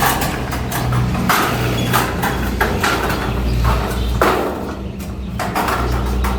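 Irregular knocks and clatter, some sharp and some dull, over a steady low hum.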